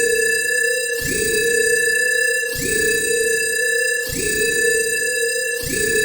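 Synthesized science-fiction alarm: a steady electronic tone with a pitch-rising swell that repeats about every one and a half seconds, cycling without a break.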